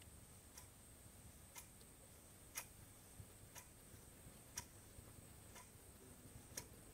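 Near silence with faint, evenly spaced ticks, about one a second.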